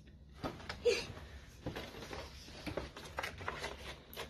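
Action figure packaging, cardboard box and plastic tray, being worked open by hand: scattered small clicks, taps and rustles, with the packaging stuck fast where it is glued to the box.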